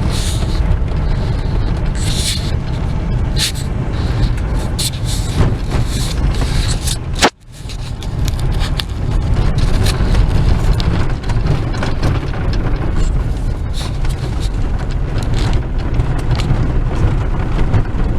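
Vehicle driving on a rough dirt back road: a loud steady low rumble with rattles and scrapes over it. There is a brief break about seven seconds in.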